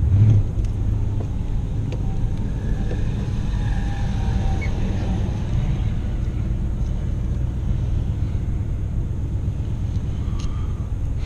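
Car running and rolling along at low speed, heard from inside the cabin as a steady low rumble of engine and road noise, with a brief louder low surge just after the start.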